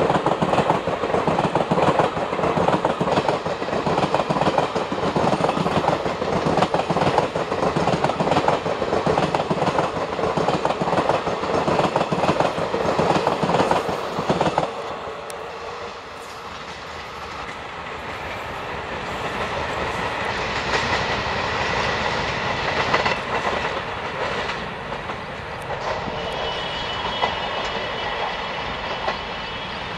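Passenger express train running past at speed close by, its coach wheels clattering rhythmically over the rail joints. About halfway through the last coach goes by and the sound drops suddenly to a quieter rumble as the train runs away, with a faint high steady tone near the end.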